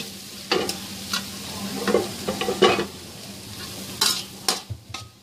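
Chopped onions sizzling in hot oil in a kadhai while a spatula stirs them, scraping against the pan every second or so.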